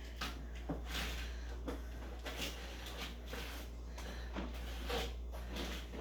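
Irregular light knocks and scrapes, several a second at times, from pots and utensils being handled in a kitchen, over a steady low hum.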